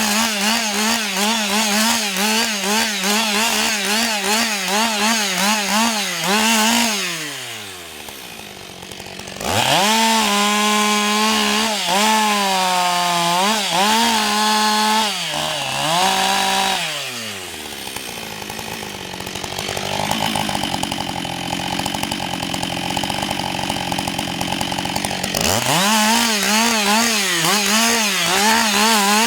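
Husqvarna 560 XP two-stroke chainsaw running at high revs, its pitch wavering and dipping repeatedly. It drops to idle about seven seconds in, revs up again with the pitch sagging and recovering, falls back to idle for several seconds, and revs high again near the end.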